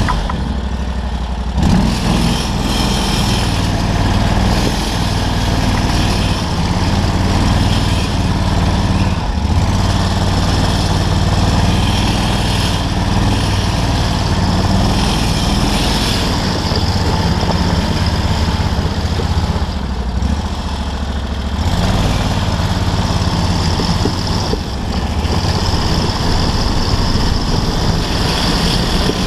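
Off-road buggy engine running under throttle while the buggy is driven over rough grass and a dirt track, with road and wind noise. The engine eases off briefly at the start and again about two-thirds of the way through, then picks up sharply each time.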